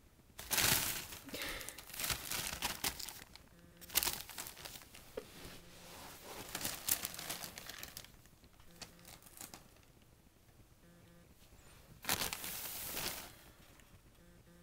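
Christmas wrapping paper crinkling and rustling in irregular bursts as a kitten scrambles about under and against it. The first few seconds are busy, then it eases off, and a short loud crackle comes near the end.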